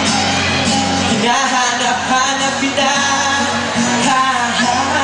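A man singing to his own acoustic guitar, both voice and guitar amplified through microphones. The guitar sounds throughout, and the voice is strongest from about a second in.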